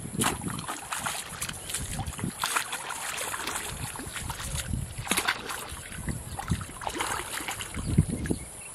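A hooked fish thrashing in shallow muddy water as it is played and hauled out on a bamboo pole line: repeated irregular splashes.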